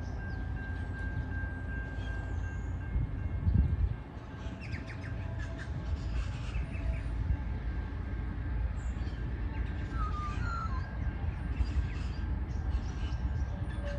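Low, steady rumble of a distant diesel freight train approaching, with birds chirping and calling over it. A brief louder low surge comes about three and a half seconds in.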